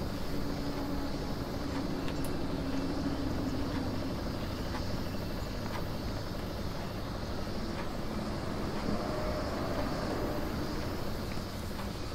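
A steady low background rumble with a few faint, scattered ticks.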